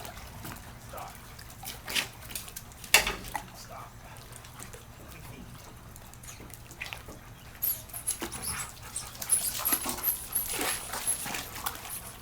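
Dog sounds by a swimming pool, with two sharp knocks about two and three seconds in and a stretch of high hissing noise in the second half.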